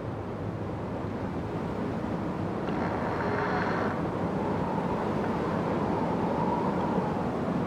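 Wind blowing through a forest: a steady rush with a heavy low rumble, swelling slightly, and a brief brighter rustle about three seconds in.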